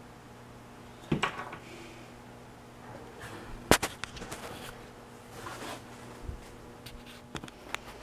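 A few sharp clicks and knocks from small plastic wiring connectors and tools being handled and set down on a wooden workbench, with soft rustling between them. The loudest knock comes about three and a half seconds in, and two more quick clicks come near the end.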